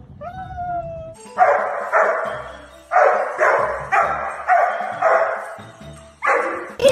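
A husky's drawn-out howling call, gliding down in pitch, in the first second. Then a run of about eight short barks, roughly two a second.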